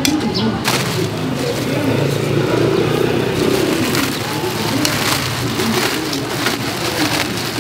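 Busy cooking-area ambience: several people chattering in the background, with frequent sharp clicks and knocks of clattering cookware and utensils.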